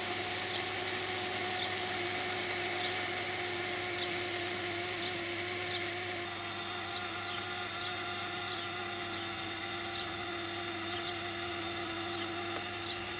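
Oscillating garden sprinkler running: the steady hiss of its row of water jets, with a steady mechanical hum underneath.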